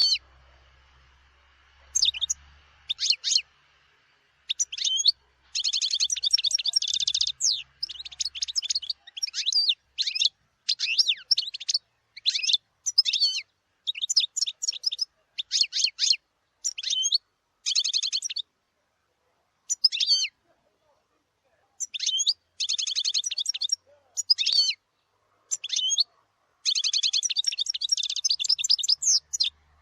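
European goldfinch singing: bursts of rapid, twittering song, some phrases under a second and others running about two seconds, separated by short pauses.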